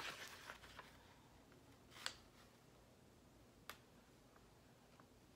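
Near silence: quiet room tone with light rustling at the start and two faint, sharp clicks, about two seconds in and again a second and a half later.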